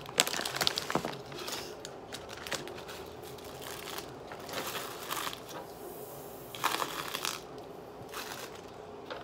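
Foil crisp bags and plastic snack wrappers crinkling as they are handled, in irregular bursts with quieter stretches between.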